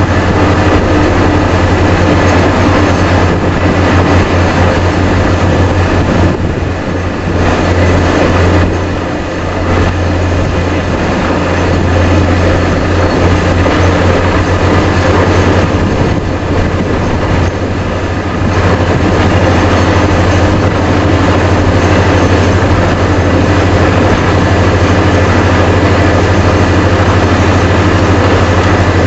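Vesta VA650X2 diesel-driven portable screw compressor and truck-mounted drill rig running loud and steady while drilling on 400 psi air, a deep engine hum under a dense mechanical and air noise. The noise eases briefly twice.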